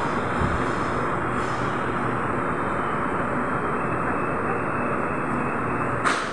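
Steady running noise of a Bangkok MRT Yellow Line monorail train, an even rumble and hiss, with a single short knock near the end.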